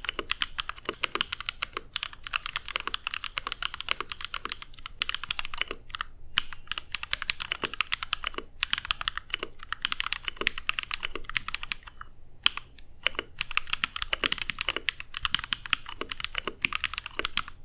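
Custom 60% mechanical keyboard with lubed Holy Panda tactile switches on a brass plate being typed on fast, a dense run of keystroke clicks with a few short pauses.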